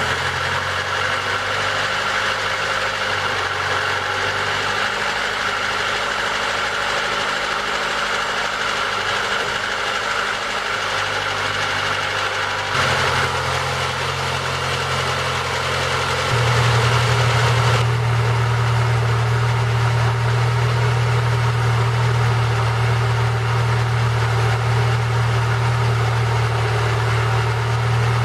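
MeMZ 317 1.4-litre petrol engine in a ZAZ Lanos idling steadily just after a first start following a rebuild of the oil pump and a valve adjustment. Its low hum grows louder about 16 seconds in.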